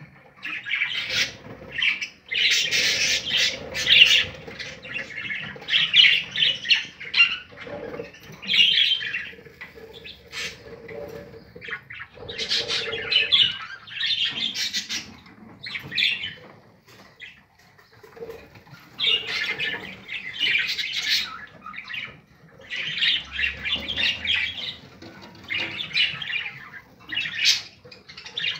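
Budgerigars squawking in repeated raspy bursts, each lasting about a second, with short pauses between them.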